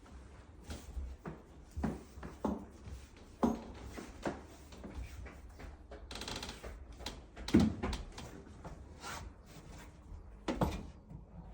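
Scattered knocks and bumps of a large household appliance being handled and moved by hand, about half a dozen in all, the loudest about seven and a half seconds in, with a brief hiss a little earlier.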